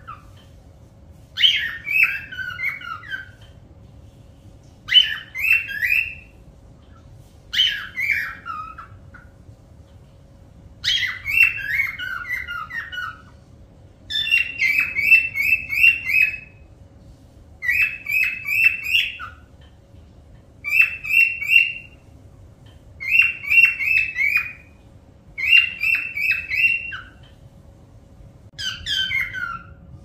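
A parrot calling in about ten short bursts a few seconds apart, each a quick run of notes. Some bursts slide down in pitch; others repeat one note rapidly.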